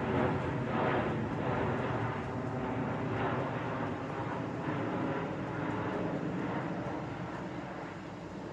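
Airbus A330 airliner's jet engines heard from the ground as it flies overhead, a steady rumble that slowly fades.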